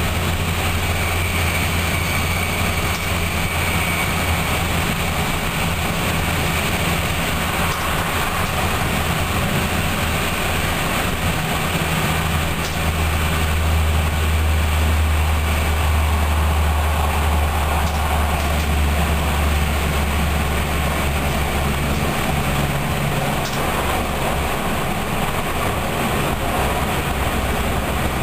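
Train running along the track, heard from the driver's cab: a steady low engine drone with rolling noise. The drone drops lower and grows louder about halfway through, then eases off near the end.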